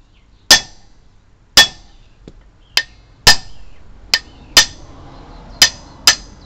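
Hammer striking a steel bar punch to drive a shaft out of a sickle bar mower's bearing housing: about nine sharp, ringing metal-on-metal blows at uneven spacing, one or two a second.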